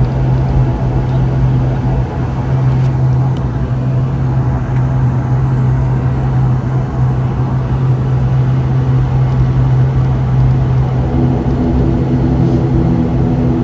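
ATR 72-600's twin turboprop engines and propellers droning steadily, heard inside the passenger cabin as a loud low hum. About eleven seconds in, higher tones join the hum as the engine note changes.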